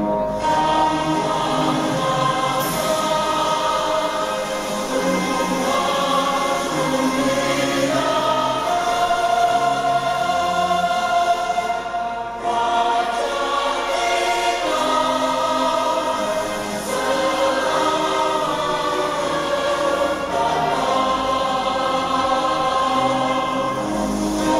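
Choir singing a song with instrumental backing, continuous and steady, several voices in harmony.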